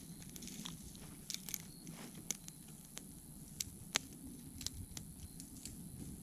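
Small kindling campfire crackling, with scattered sharp pops at irregular intervals as the fire struggles to catch.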